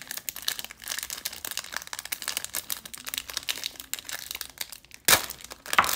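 Foil wrapper of a Panini Select football card pack crinkling as it is handled and torn open, with a louder rip of the foil about five seconds in.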